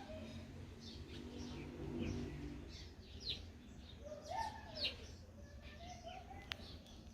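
Several small birds calling: many short, quick high chirps, mixed with some lower rising-and-falling calls. A single sharp click comes about six and a half seconds in.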